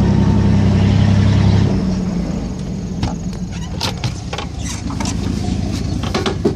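A 1992 Chevy Silverado 1500 pickup's engine running steadily, louder for the first couple of seconds and then settling lower. Over the second half come a series of sharp clicks and knocks.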